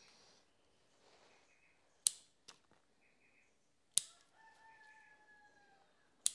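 Bonsai shears snipping back bottlebrush (Callistemon) shoots: three sharp snips about two seconds apart, the first followed by a lighter click. Between the second and third snip a rooster crows faintly, one long held call that falls slightly in pitch.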